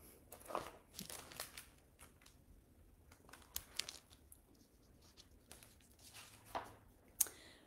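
Pages of a large, glossy picture book being turned, with quiet paper rustling and a scattering of short crinkles and crackles.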